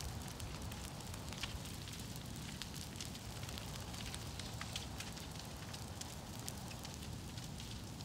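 Large brush-pile fire of storm-broken tree limbs burning, a steady rush of flame with many sharp crackles and pops from the wood.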